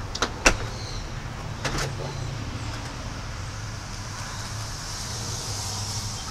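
A few sharp clicks, the loudest about half a second in and another pair near two seconds, over a steady low hum.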